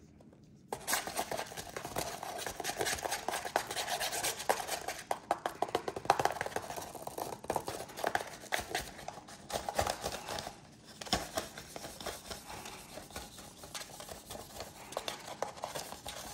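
Rustling and scraping of a hand-made paper funnel against the neck of a plastic Bobo balloon as small foam beads are worked through it, full of small crackles and ticks. It starts suddenly about a second in and eases for a moment about two-thirds of the way through.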